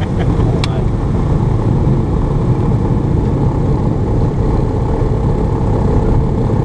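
Cessna Cardinal's piston engine and propeller running steadily as the aircraft rolls along the ground, a loud, even drone heard from inside the cabin.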